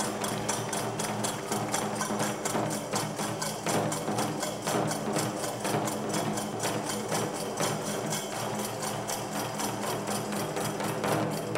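Nanbu kagura accompaniment music: percussion keeps up a fast, even beat over steady held tones.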